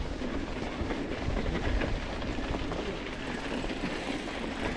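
Mountain bike rolling over a rough trail: continuous rattling and crunching from the tyres and bike, over a steady low rumble.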